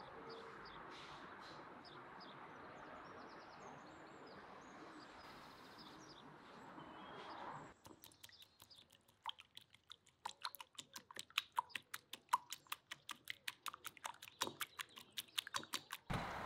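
A fork beating an egg in a ceramic bowl: rapid clinking of the fork against the bowl, about five strikes a second, starting about halfway through. Before that, a steady outdoor hiss with faint bird chirps.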